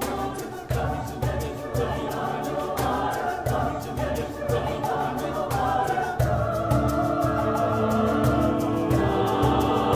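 Mixed choir singing with piano and hand-drum (conga and cajon) accompaniment, the drums keeping a steady beat. From about six seconds in the choir holds long sustained chords and grows louder.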